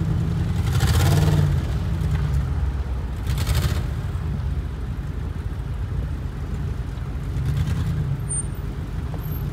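Land Rover Discovery II engine running under load as it pushes through snow, with two short hissing surges of spinning tyres and spraying snow about a second in and at about three and a half seconds. The wheelspin is taken as a sign that its traction control is not working, leaving one tyre spinning.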